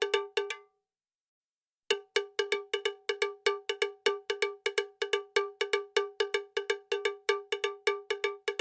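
Rapid, evenly repeated cowbell-like metallic strikes at one pitch, several a second. They cut to dead silence for about a second near the start, then resume steadily.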